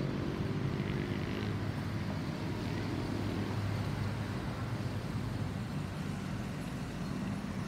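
Low, steady rumble of a Boeing 787-9 airliner's jet engines passing high overhead, blended with the hum of surrounding traffic.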